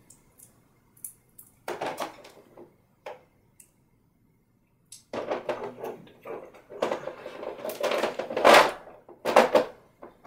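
Rummaging through a box of oil paint tubes: a few scattered knocks and rattles at first, then a busier run of clattering and handling noise in the second half, loudest near the end.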